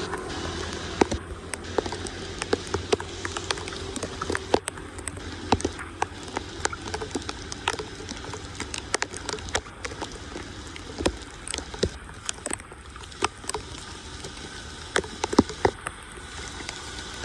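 Water pattering and splashing, with many irregular sharp clicks and knocks.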